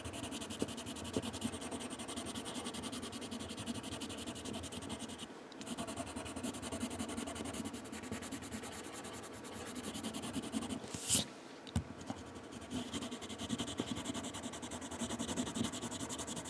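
Colourless blender pencil rubbing in steady strokes over coloured pencil on paper. There is a short lull about five seconds in and a single sharp click around eleven seconds.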